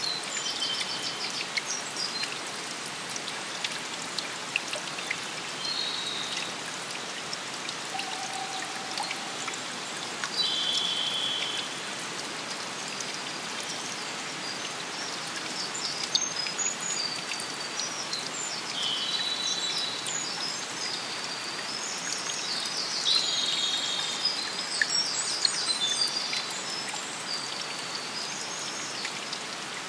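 Steady wash of water, rain and running water, with birds calling again and again in short chirps, most busily in the second half.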